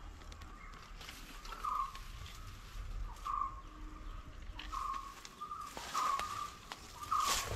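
A bird calling: short notes at one pitch repeated about every second or so, over a faint steady tone at the same pitch, with a few brief rustles, the loudest near the end.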